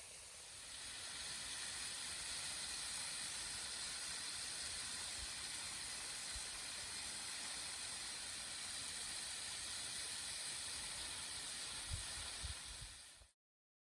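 Steady rush of a small trailside waterfall. A few low knocks come near the end, and the sound cuts off abruptly.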